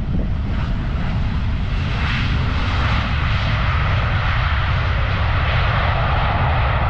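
Jet engine noise from a Transavia Boeing 737 on the runway: a steady, loud rushing that strengthens about two seconds in, over a low rumble of wind on the microphone.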